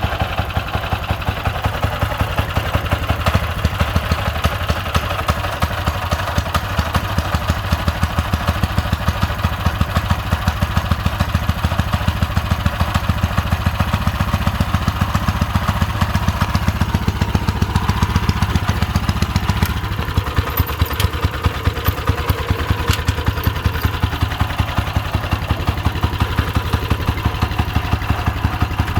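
Small gasoline engine of a miniature ride-on 'gasser' locomotive running steadily with an even, fast pulsing beat; its note shifts a little about two-thirds of the way through.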